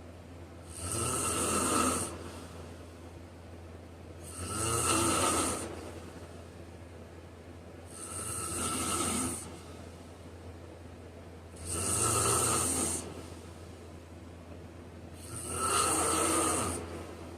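Person snoring in a slow, regular rhythm: five snores, about one every four seconds, each lasting about a second and a half, over a steady low hum.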